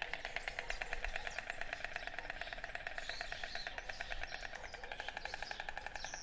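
White storks clattering their bills in a rapid, steady wooden rattle, with small birds chirping briefly now and then.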